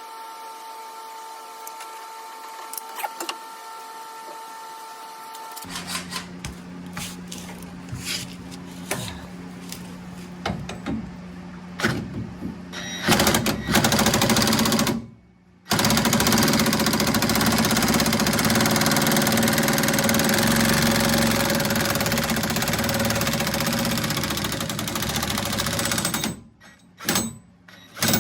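Impact wrench hammering on a stubborn tie-rod bracket bolt: a short burst about 13 seconds in, then a long run of about ten seconds, with scattered clicks of tool handling before and after.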